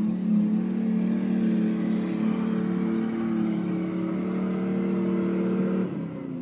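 Nissan Patrol 4x4's engine held at high, steady revs under load as it climbs a steep dirt slope; the revs drop off near the end.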